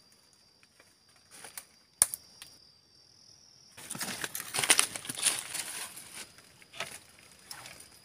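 Footsteps crunching through dry leaf litter and rustling past undergrowth, loudest from about four to six seconds in, with a sharp snap about two seconds in.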